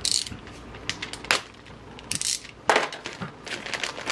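A rag rubbing and rustling over an aluminium fan shroud as dirt and grease are wiped off it, in a string of short scuffs and scrapes, the loudest a little under three seconds in.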